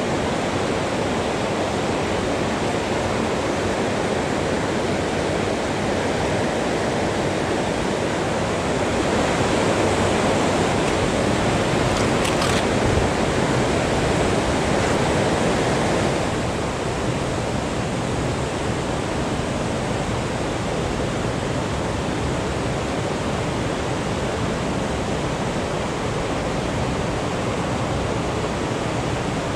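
Mountain river rapids rushing steadily over boulders, a little louder for several seconds in the middle.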